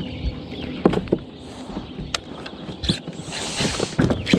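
Scattered knocks and taps of handling on a fishing boat, with a short rush of noise near the end.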